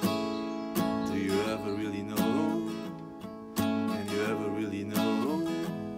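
Steel-string acoustic guitar with a capo, strummed chords ringing on, with a hard accented stroke about every second and a half and lighter strokes in between.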